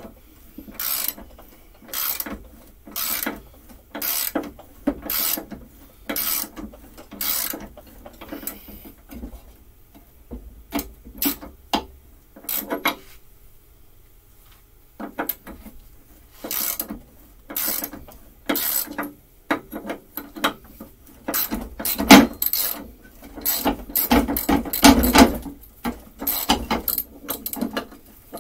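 Socket ratchet wrench clicking as a large bolt is worked loose from a push mower deck, in strokes about once a second at first, then in irregular bursts with short pauses, quicker and louder near the end.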